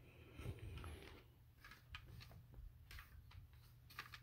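Near silence with a few faint, scattered clicks and rustles of plastic CD jewel cases being handled and set down.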